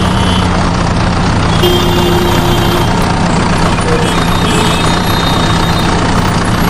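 Truck engine running steadily at idle, a low continuous hum.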